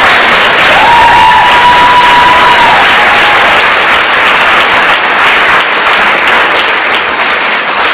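Audience applauding steadily in a large hall, with one held high note rising over the clapping about a second in.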